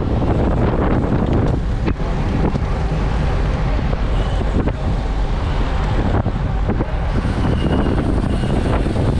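Steady wind buffeting on a bike-mounted camera's microphone while riding in a group of road bikes, mixed with tyre and road rumble, with a few sharp clicks.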